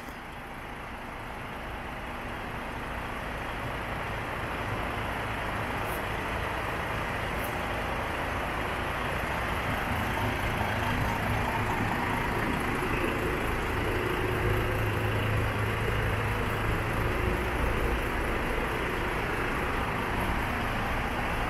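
PACCAR MX 410 bhp diesel engine of a DAF XF105 tractor unit idling: a steady low rumble that grows gradually louder over the first ten seconds or so, then holds.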